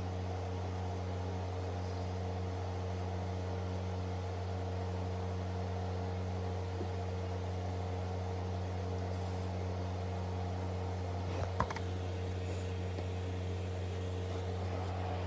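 A steady, even mechanical hum, with a faint click about three-quarters of the way through.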